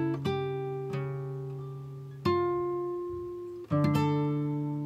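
Background music: an acoustic guitar picks single ringing notes, a new one struck every second or so, each fading away.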